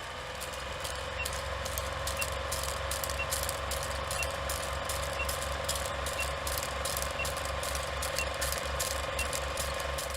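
A vehicle engine running steadily with a low rhythmic pulse, a rapid regular ticking rattle over it, and a faint short beep about once a second.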